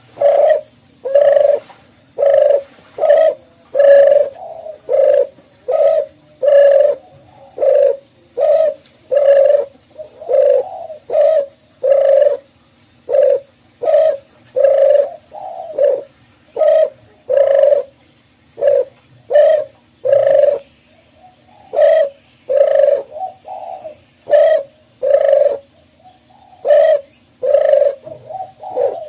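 Dove cooing: a long run of short, loud coos, about one a second, with a faint steady high whine behind them.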